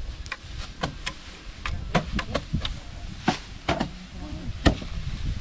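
Rice sheaves being beaten by hand against a wooden threshing rack to knock the grain loose: irregular knocks, two or three a second, with one harder knock about three-quarters of the way through.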